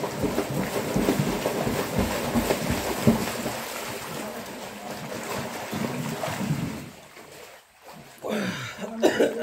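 Water splashing and churning in a swimming pool as swimmers kick and paddle, dying down about seven seconds in. A short, louder sound with a falling pitch follows near the end.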